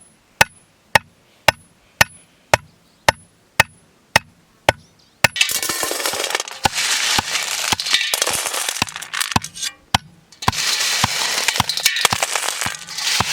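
Sharp knocks in a steady rhythm, about two a second, like chopping on a board. About five seconds in, loud sizzling of food frying in hot oil starts abruptly; it breaks off briefly near ten seconds, then resumes, with the knocks going on under it.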